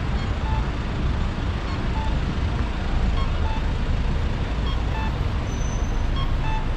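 City street traffic: a steady low rumble of buses, trucks and cars passing. Short beeps sound roughly every second and a half.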